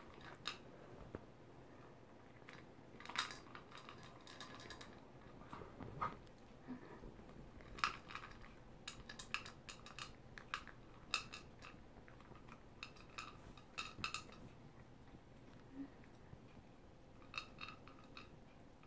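Toy poodle eating from its bowl: faint, irregular crunches and clicks, coming in small clusters every second or two.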